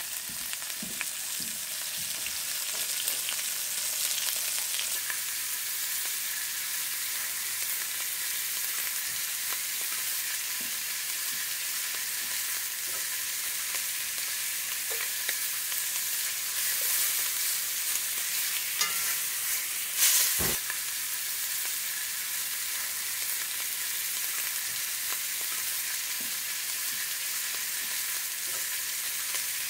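Pieces of rabbit meat sizzling steadily as they brown in very hot canola oil and rendered pork lard in an enamelled cast-iron Dutch oven, with more pieces being laid in by hand. One sharp knock sounds about 20 seconds in.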